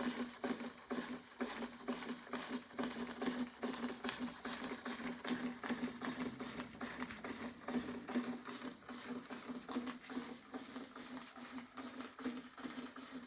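Märklin 4112 toy live-steam engine running under steam from its 80% spirit burner, with a quick, even chuffing beat over a steady hum.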